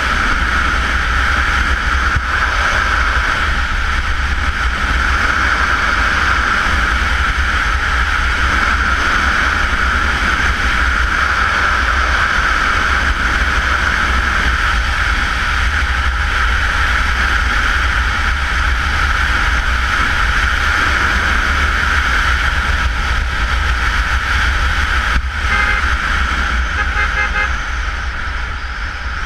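Steady wind rush over the camera microphone and the engine of a Honda CBR motorcycle running at road speed. Near the end a vehicle horn gives a quick series of short toots.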